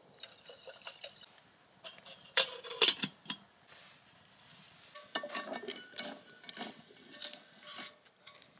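Clinks and knocks of metal camp cookware on a wire grill over a wood fire, loudest about two and a half seconds in, then a run of lighter clinks from about five seconds. Near the end a spatula scrapes food out of a frying pan.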